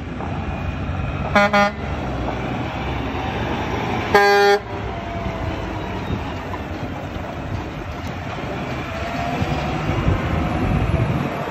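Concrete mixer truck's horn honking, two short toots about a second and a half in and a louder blast about four seconds in, over the steady rumble of the diesel truck driving past, which grows louder near the end.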